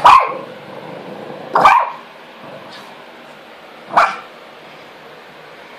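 Small dog barking: three short, sharp barks, one at the start, one under two seconds in and one about four seconds in.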